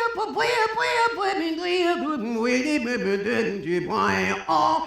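A woman singing without words: a sliding, wavering vocal line whose pitch sinks lower through the middle, then a high swooping note about four seconds in.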